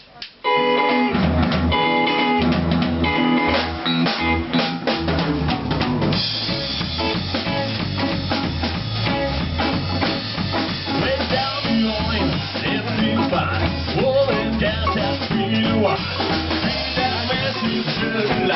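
Live band playing the instrumental opening of an up-tempo song: guitar and bass over a drum kit, coming in abruptly about half a second in. The drums fill out with cymbals from about six seconds in.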